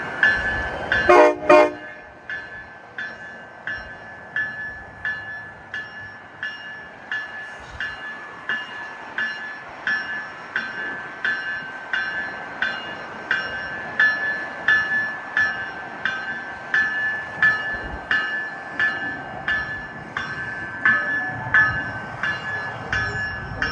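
Nathan K5LA five-chime horn on a GO Transit cab car sounding two short blasts, the departure signal. Then a bell rings steadily about 1.4 strokes a second, with a low rumble of the train building near the end.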